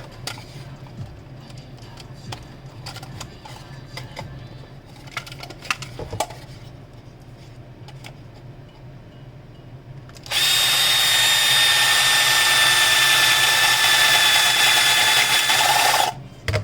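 Small clicks and handling noises, then about ten seconds in an electric drill starts up and runs at a steady speed for about six seconds with a constant high whine before it cuts off, drilling a button hole in the project box.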